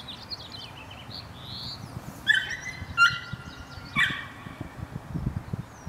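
A dachshund's high-pitched yips, three of them about a second apart, while it runs an agility course.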